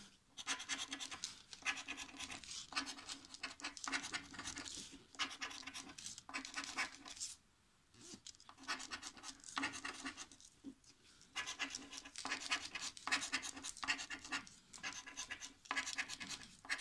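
A round plastic scraper rubbing the coating off a paper lottery scratch card in runs of quick back-and-forth strokes, with a short break about seven seconds in.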